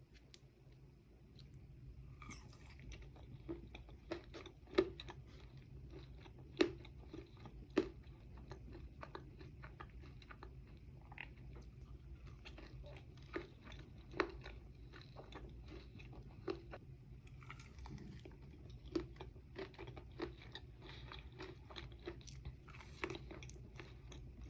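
Close-miked chewing of monster cookie dough with oats, M&Ms and chocolate chips: soft mouth sounds broken by irregular crunchy clicks, a few sharper ones standing out among them.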